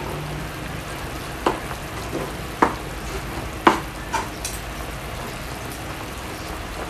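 Fork and utensil clicking and scraping on a plastic cutting board while shredding boiled chicken, with four sharp clicks spread through the first two-thirds. Under it runs a steady hiss from the pot of squash boiling on the burner.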